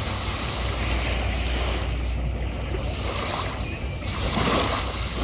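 Sea waves washing onto a sandy beach in slow swells, with a steady low rumble of wind on the microphone.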